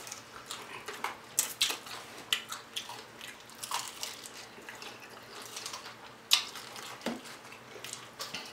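Close-miked eating: biting into and chewing fried chicken wings, with irregular crunches and clicks from the crisp coating. The loudest crunch comes a little past six seconds in.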